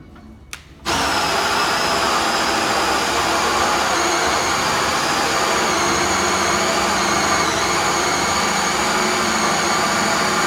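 Power drill spinning a hole saw through a door to bore a lock hole. It starts about a second in and runs steadily at full speed with an even whine.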